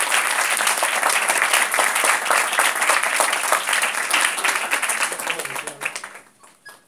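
A small group of people applauding, the clapping dying away about six seconds in.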